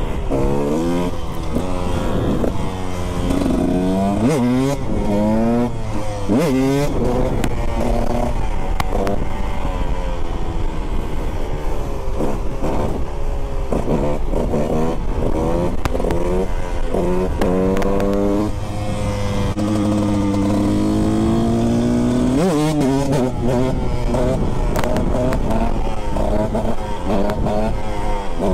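2018 KTM 125 SX's single-cylinder two-stroke engine, heard from the rider's seat, pulling hard through the gears: the pitch climbs and drops back at each shift, over and over, with a steadier stretch a little past halfway.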